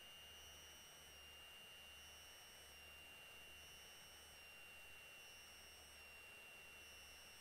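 Near silence: a faint steady electronic hiss with a thin, high, unchanging tone and a weak low hum.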